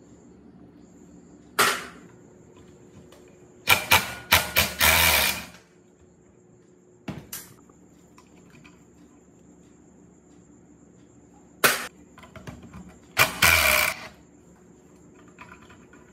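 Hand tools working on the old rusted water pump in about five separate bursts of clattering and scraping on metal, the longest lasting over a second and a half.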